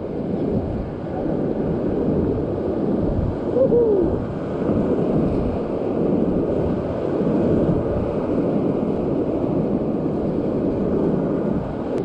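Whitewater rapid rushing steadily around a raft, with a brief falling whoop just before four seconds in.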